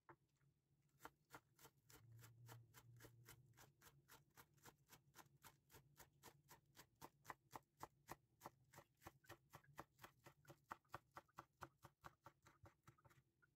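Chef's knife chopping spring onions on a bamboo cutting board: a faint, steady run of quick chops, about four or five a second, starting about a second in and stopping just before the end.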